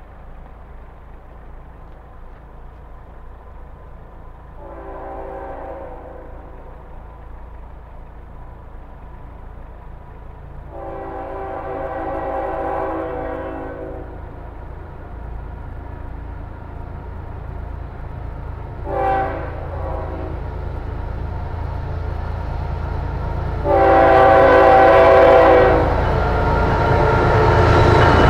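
Florida East Coast Railway freight locomotive's air horn sounding the grade-crossing signal: long, long, short, long, each blast a chord of several notes and the last the loudest. Under it the low rumble of the approaching train builds until the locomotive draws close at the end.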